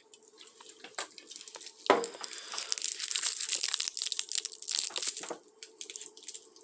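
Plastic candy packet being handled and torn open, crinkling: a sharp crack about two seconds in, then a few seconds of dense crinkling.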